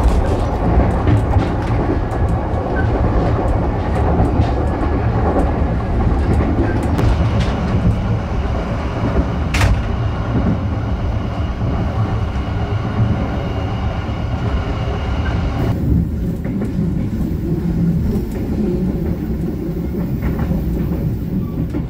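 Passenger train coach running along the track at speed, heard from inside: a steady low rumble and rattle of the wheels on the rails, with one sharp click a little under halfway through. The sound turns duller in the last few seconds.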